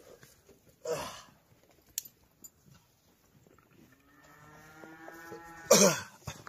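Cattle at a feed trough, one cow lowing: a long moo at a steady pitch from about four seconds in, ending in a loud rough burst near the end. A short noisy scuffle comes about a second in.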